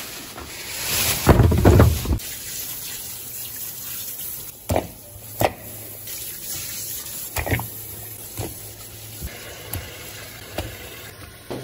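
A plastic bag rustling loudly about a second in. Then raw pork bones knock sharply against a ceramic plate several times, over a steady hiss of running tap water.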